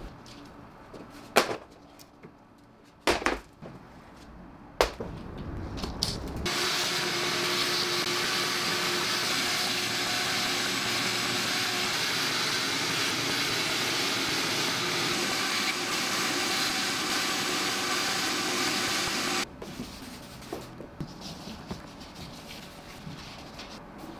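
Shop vacuum running steadily, its hose nozzle working along the rear window's empty seal channel. It starts about six seconds in and cuts off suddenly some thirteen seconds later. A few sharp knocks come before it, and soft rubbing follows.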